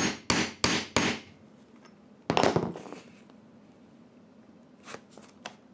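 A hammer strikes a metal grommet setter resting on the grommet, washer and anvil. Four quick sharp blows land about a third of a second apart, clinching the half-inch grommet into the tarp. About two seconds in there is one louder knock with a short rustling tail, then a few faint light clicks near the end.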